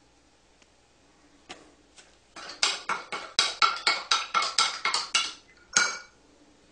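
Metal spoon clinking against a drinking glass while stirring chocolate powder into milk: a few light clinks, then a quick run of about five clinks a second for about three seconds, and one more clink near the end.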